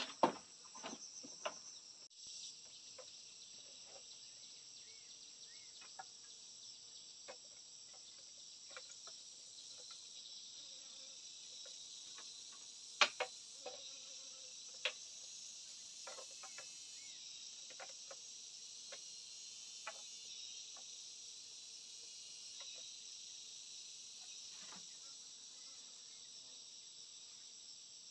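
A steady, high-pitched chorus of insects drones throughout. Scattered knocks and taps of bamboo and wood being handled sound over it, a few louder ones near the start and about halfway through.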